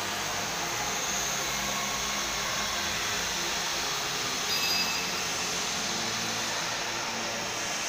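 Steady rushing machine noise with a low, uneven hum underneath.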